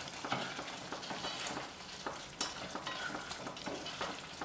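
Black slotted spatula stirring thick paneer-and-pea curry gravy in a pot in repeated strokes, with the gravy sizzling as it cooks over the flame.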